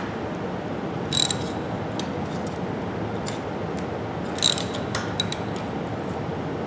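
Ratchet wrench with a 14 mm socket clicking in a few short runs as it snugs down the nut holding a copper cable lug on a welding ground clamp, over a steady background hiss.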